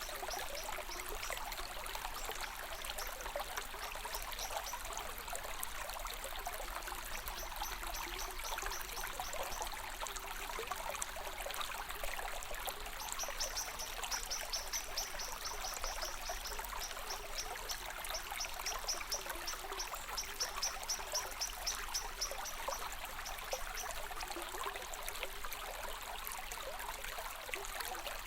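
A stream of water trickling and flowing steadily. A high, fast chirping comes and goes over it, strongest in the middle.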